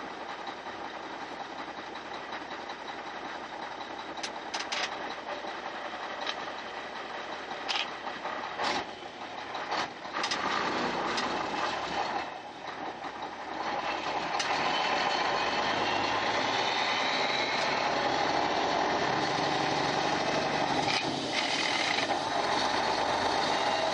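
Mack 300 Econodyne diesel in a half-loaded 1993 Mack RD dump truck, heard from inside the cab, pulling away while the 8-speed Eaton gearbox is shifted up. The engine note drops off briefly at the shifts about nine and twelve seconds in, with a few sharp clicks around them, then runs louder and steadier under load from about fourteen seconds in.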